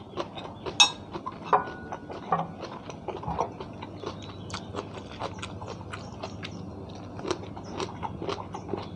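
A run of irregular small clicks and taps.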